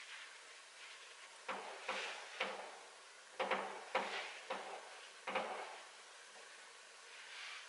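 Fireworks going off: a quick, irregular string of about eight faint bangs, each with a short fading tail, from about one and a half seconds in to about five and a half seconds.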